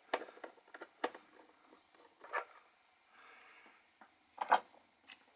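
Plastic battery cover on the underside of a motorised display turntable being prised off and set aside: a handful of separate light clicks and knocks, the loudest about four and a half seconds in.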